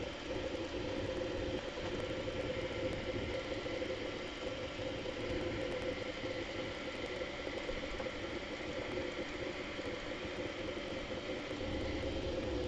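Bambu Lab A1 3D printer running mid-print: a steady mechanical whir from its stepper motors and cooling fans as the print head and bed move. A deeper hum comes in near the end.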